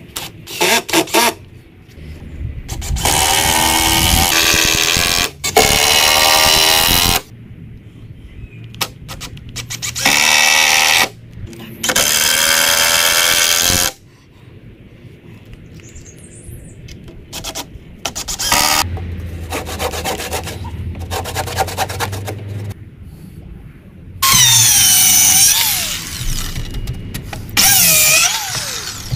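Power drill run into timber posts in several bursts of one to three seconds, with quieter handling knocks and clicks between them. The motor's pitch drops in the later runs as the bit or screw bites into the wood.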